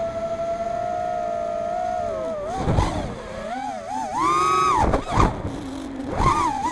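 FPV quadcopter's brushless motors and propellers whining, heard from the onboard camera: a steady hum for the first two seconds, then the pitch swoops up and down with the throttle, highest and loudest about four seconds in. A few short rushes of air noise come with the quick manoeuvres.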